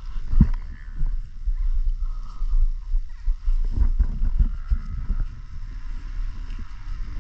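Rumbling and knocking of a body-worn action camera as the rider moves and works his motocross gloves onto his hands, with uneven low thumps throughout.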